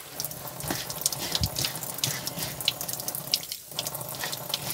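A hand rubbing and crumbling damp flaked corn meal for cuscuz in a plastic bowl, making an irregular crackling and rustling, with a brief pause about three and a half seconds in.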